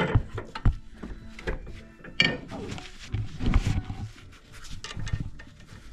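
Hand tools knocking and clicking against metal suspension parts in irregular strokes, with a few short scraping sounds, as the tie rod nuts are tightened with wrenches.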